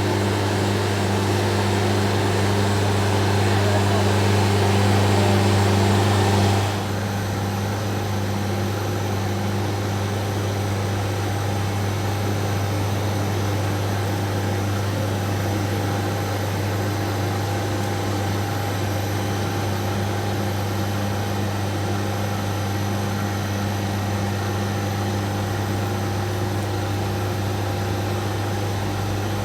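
Large concrete floor grinder running with a strong, steady low hum. About seven seconds in, the rougher noise above the hum drops away abruptly, and the machine runs on more quietly and evenly.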